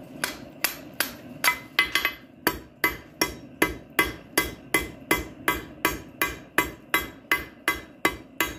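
Blacksmith's hammer striking hot 3/8-inch round steel bar on an anvil, forging the handle of a coal rake. The blows come in a steady rhythm of about three a second, each with a short metallic ring.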